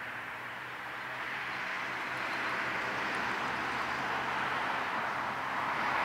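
Steady outdoor hiss that swells slowly about two seconds in and again near the end, with no bird calls standing out.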